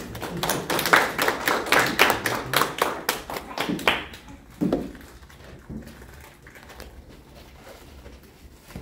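A small audience clapping, dense for about four seconds and then dying away to a few scattered claps.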